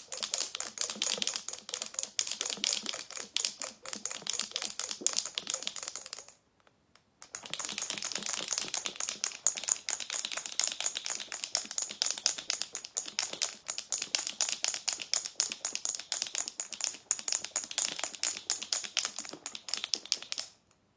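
Two marbles rattling and clicking rapidly against the inside of a jar of whipping cream shaken hard by hand to churn it into butter; the cream is still liquid, so the marbles knock about freely and loudly. The shaking stops for about a second roughly a third of the way in, then starts again.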